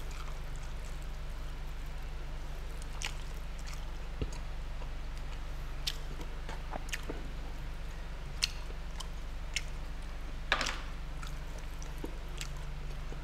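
Wet squishing and sticky smacks of sauce-soaked braised beef ribs being pulled apart by hand, mixed with chewing. The sounds are scattered and short, the loudest about three quarters of the way through, over a steady low hum.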